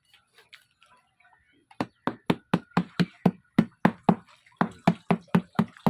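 Rapid, even knocking strikes, about four a second, starting a little under two seconds in and going on steadily.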